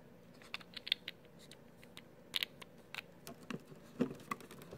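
Light plastic clicks, taps and small scrapes as a Blink Outdoor camera is handled and pushed into its plastic floodlight mount; an irregular scatter of small knocks, a few sharper ones midway.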